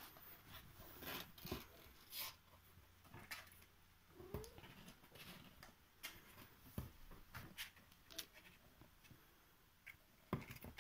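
Near silence in a small room, broken by scattered soft clicks and knocks.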